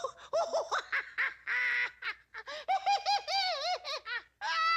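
A cartoon owl's high, hooting laughter: a run of short rising-and-falling hoots, then one long held note near the end.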